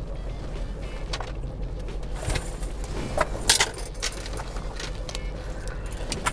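A handbag's metal chain strap jingles and the bag rustles as it is rummaged through, with a few sharp clinks about halfway through, over the steady low rumble inside a car.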